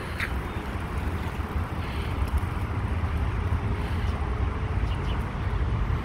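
Low, uneven outdoor rumble, the kind wind buffeting a phone microphone or distant traffic makes, with no clear single source.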